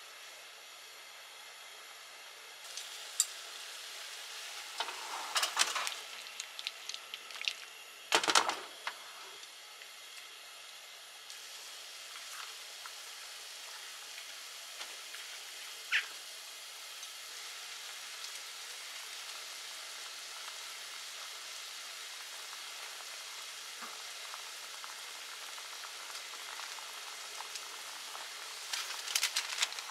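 Sweet soy simmering liquid (sake, soy sauce, sugar and honey) bubbling and sizzling around chicken wings in a frying pan: a steady hiss that grows a little louder over the first few seconds. Chopsticks knock and scrape against the wings and pan as the pan is moved, several times in the first nine seconds, loudest about eight seconds in, with a single sharp tick later on.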